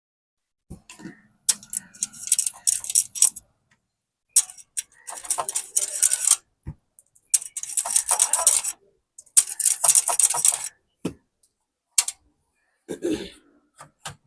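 Small hand-work sounds on an electronics bench: four bursts of scraping and rattling with many small clicks, each lasting one to two seconds, and a few single sharp clicks between them, made as resistors are worked into an amplifier circuit board.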